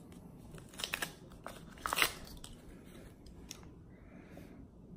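Small wet-wipe sachet from a screen-protector kit being torn open and crinkled by hand, with two short bursts of crackling about one and two seconds in.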